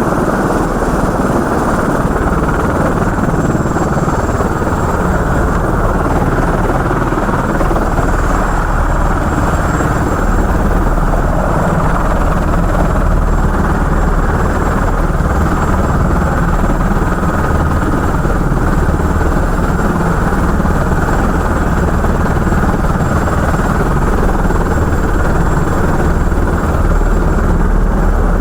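Helicopter engine and rotor running steadily, a loud, unbroken rumble that does not change.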